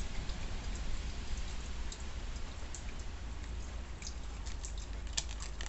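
Faint clicks and taps of fingernails and stiff tarot cards being handled and shifted by hand, coming more often in the last second or two, over a steady low background rumble.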